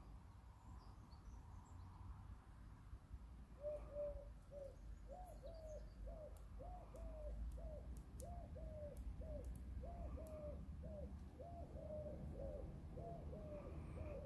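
A pigeon cooing: a long run of short, evenly repeated coos that starts a few seconds in, about two or three a second.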